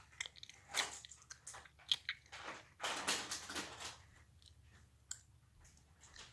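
Clear slime being worked by hand, giving wet clicks and pops, with a longer squelching stretch about two to four seconds in.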